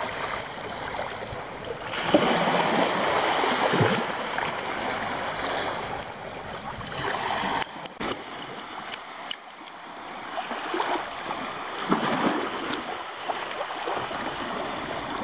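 Small waves washing onto a sandy beach, swelling and falling back every few seconds.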